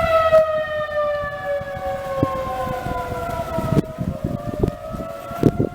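Outdoor tornado warning siren wailing: its tone slides slowly down in pitch, then about four seconds in starts climbing again, with irregular low rumbling thumps underneath.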